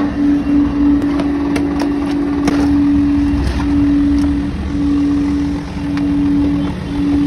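A steady motor hum with a droning tone that drops out briefly a few times in the second half. In the first few seconds a metal scraper scrapes and clicks against a large kadhai full of thick peda mixture.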